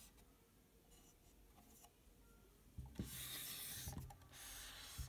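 Rubbing and scraping handling noise in two stretches, the first starting about three seconds in with a few low thumps, the second shorter one near the end; before that only faint room tone.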